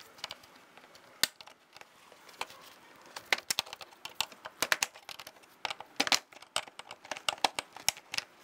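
Sharp plastic clicks and snaps at irregular intervals, in small clusters from about three seconds in. They come from a trim tool prying the centres out of plastic push-pin clips and pulling the clips from a 2009–2015 Honda Pilot's plastic bumper and grille.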